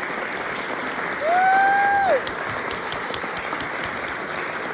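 Audience applauding steadily, with one loud held high-pitched cheer close to the microphone about a second in, lasting about a second and sliding down as it ends.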